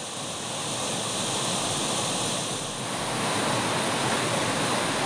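Surplus water from a rain-filled irrigation tank rushing and churning as it pours out through the outlet: a steady rush of white water.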